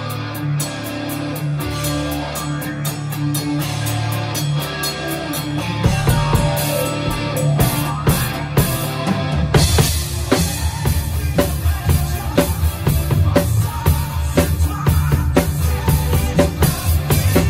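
Melodic rock song with guitar and bass, played along on an acoustic drum kit. The drums build up about six seconds in and settle into a full, driving beat with a steady bass drum from about ten seconds in.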